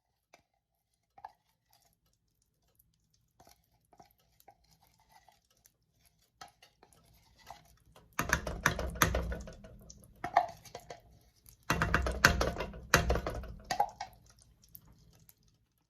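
Cookware and utensils handled at the stove: scattered light clicks, then two loud bursts of clattering and scraping, about eight and twelve seconds in.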